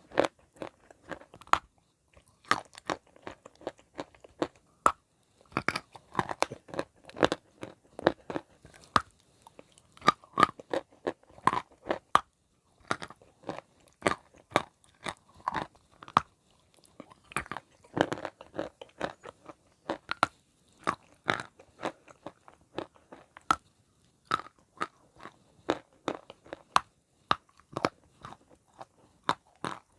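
Wet chalk being bitten and chewed: a dense run of sharp crunches in irregular clusters, with short pauses between bites.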